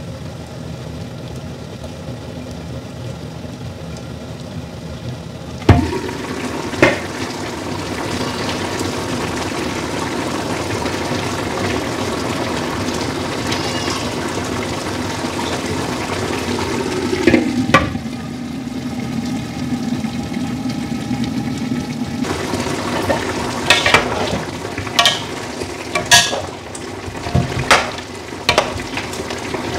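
Lamb stew cooking in a large pan: a steady low simmer under the lid, then about six seconds in a sharp knock as the lid comes off and the sizzling and bubbling get louder. In the last several seconds, a string of sharp knocks and clinks against the pan.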